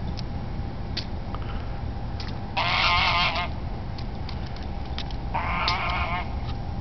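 Domestic goose giving two long, wavering calls about three seconds apart, the first the louder; these are the bird's own weird noises.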